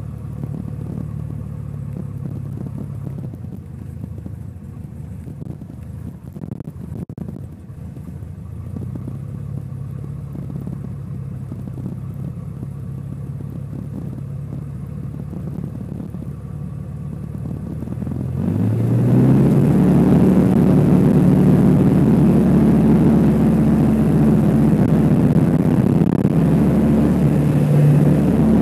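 Kitfox light aircraft's propeller engine, heard from the cockpit, idling steadily. About two-thirds of the way through it is throttled up with a quick rise in pitch and runs loud and steady at full power for the takeoff roll.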